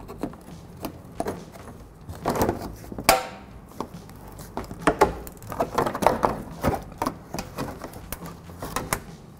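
Scattered sharp clicks and knocks of tools and plastic as a push-type body clip is pried out and the plastic undercarriage shield of a Toyota Camry is handled. There is one brief ringing clink about three seconds in.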